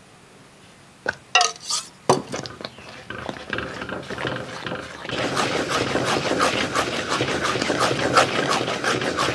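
Wooden spatula stirring thick, sticky amla-and-jaggery lehyam in a brass pot. A few knocks come near the start, then a busy scraping and squelching of the thickening paste that gets louder about halfway through.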